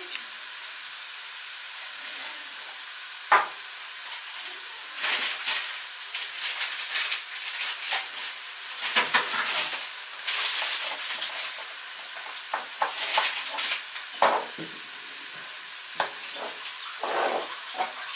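Chopped onions and bell peppers frying in sunflower oil in a pan: a steady sizzle with irregular louder crackling flare-ups, and one sharp knock about three seconds in.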